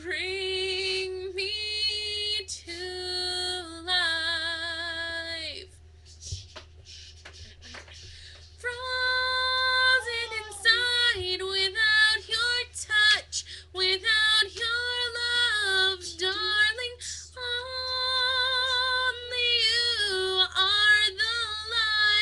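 A young female voice singing unaccompanied in long held notes with vibrato, pausing for a couple of seconds about a third of the way in, over a faint steady low hum.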